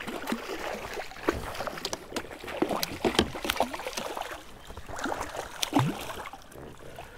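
A hooked largemouth bass thrashing at the surface beside a kayak, throwing up repeated, irregular splashes of water.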